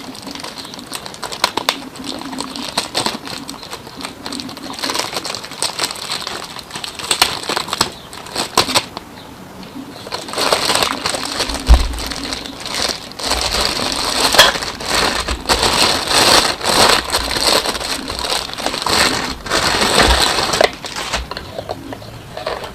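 Plastic packaging crinkling and rustling as a riflescope is unwrapped and handled. The crackling is irregular throughout and grows louder and busier about halfway through.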